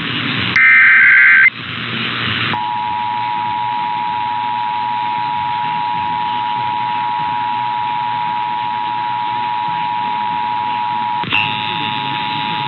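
Emergency Alert System test broadcast: the last burst of a SAME digital header, a short screeching data burst about a second in, then a second of hiss. From about two and a half seconds in comes the EAS two-tone attention signal, 853 and 960 Hz sounded together, held steady. A click comes near the end, after which the tone continues with a higher whine added.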